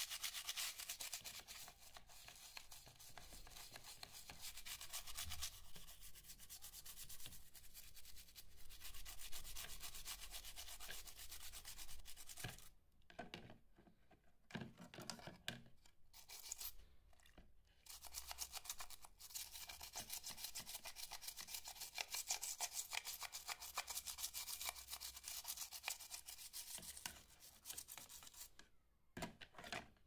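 Toothbrush bristles scrubbing the wet plastic casing of a TV remote control, a fast scratchy back-and-forth that stops briefly a few times.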